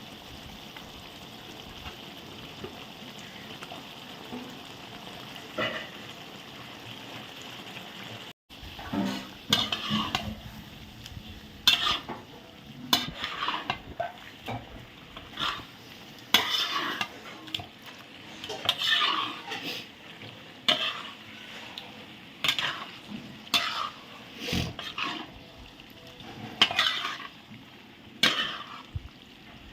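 Brinjals frying in masala in a large pot with a steady sizzle. From about nine seconds in, a metal ladle scrapes and stirs the pot in repeated strokes, about one every second or two.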